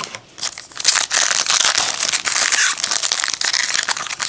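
Foil wrapper of a football trading-card pack being torn open and crinkled: a dense, loud crackling that starts about a second in, after a few short rustles.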